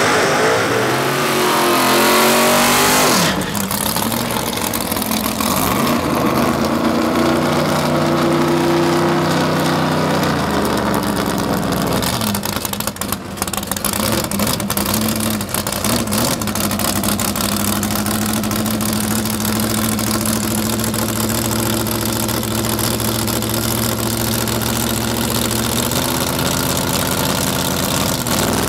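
Opens with a loud drag-racing engine pulling hard, its pitch rising, cut off suddenly about three seconds in. Then a drag-race pickup truck's engine idling fast, revved up and let back down a few times, before settling into a steady idle.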